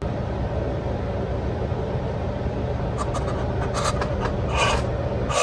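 Steady low hum and rumble, with a few short scratchy sounds about three to five seconds in.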